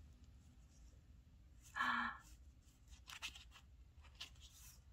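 Faint rustling and crinkling of sticker sheets being shuffled in the hands, with a few crisp ticks of the sheets. About two seconds in there is one short, soft vocal sound.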